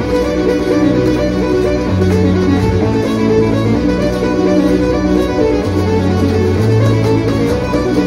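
Instrumental music with a bass line that changes note every second or two.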